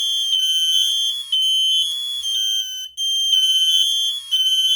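Smoke alarm under test sounding its piezo horn: loud, piercing high-pitched beeping in long pulses, with several tones overlapping and a short break about three seconds in, between its spoken "Fire" warnings.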